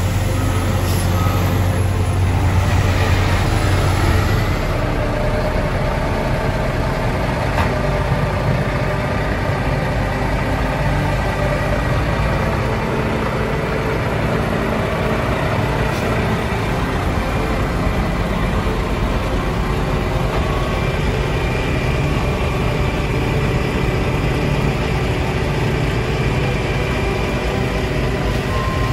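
Heavy diesel dump truck engines running steadily: first a truck pulling away, then a dump truck working beside an asphalt paver as it raises its bed to unload asphalt.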